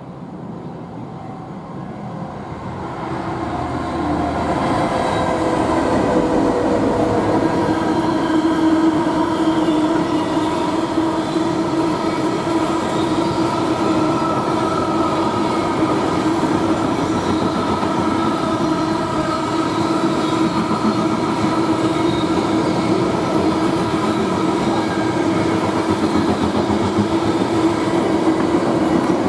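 A train approaching and then passing at length: its sound builds over the first few seconds, then holds loud and steady, a continuous hum of several steady tones over rail noise.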